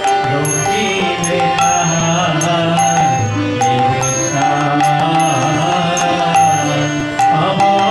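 Devotional kirtan: a man singing a chant to a harmonium, with a bright metallic tap marking a steady beat about every three-quarters of a second.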